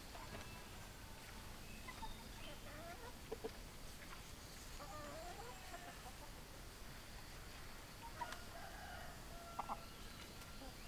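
Hens clucking: scattered short calls, with a longer wavering call about five seconds in.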